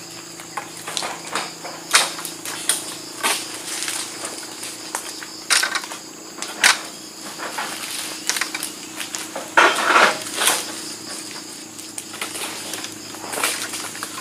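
Egrek long-pole sickle hooking and hacking at oil palm frond bases: irregular crunching and scraping strokes of the blade in the fibrous fronds, with a louder, longer tearing crunch about ten seconds in.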